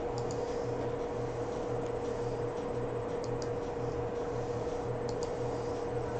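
Steady electrical background hum, with a lower hum pulsing about twice a second, and a few faint mouse clicks.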